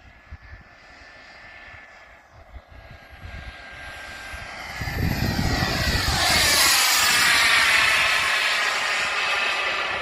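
Turbine-powered RC model jet flying in: the small turbine's high whistle is faint at first, then grows quickly into a loud whine and rush about halfway through as the plane passes close by.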